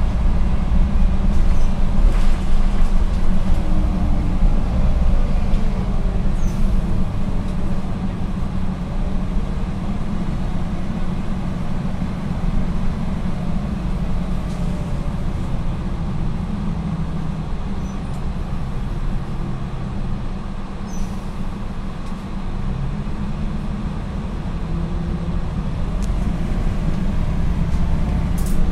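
Ride noise inside a MAN NL243 CNG low-floor city bus under way: a steady low drone from the gas engine and running gear, with a faint whine sliding in pitch in the first few seconds and a few light rattles. It eases off through the middle and builds again near the end.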